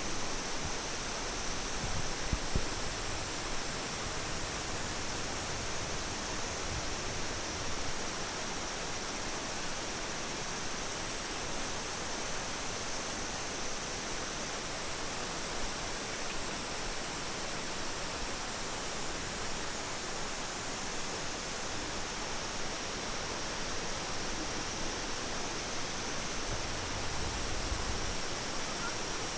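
Steady rush of falling water, an even unbroken roar, with a couple of faint low thumps about two seconds in.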